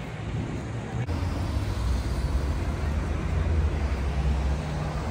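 Street traffic: a motor vehicle's engine running with a low, steady hum that grows louder about a second in.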